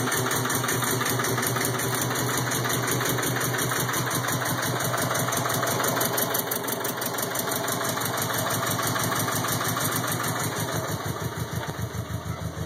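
2002 Subaru WRX's turbocharged flat-four engine idling roughly, with a fast pulsing beat that turns more uneven and lumpy from about halfway through.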